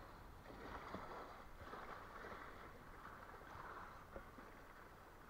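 Faint, steady outdoor hiss of wind and water, with a few light clicks from handling gear.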